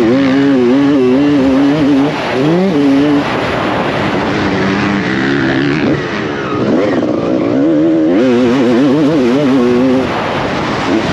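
Honda CR250R two-stroke single-cylinder motocross engine ridden hard, its revs climbing sharply and dropping again several times as it accelerates, shifts and backs off. Near the end the pitch wavers quickly up and down over rough ground.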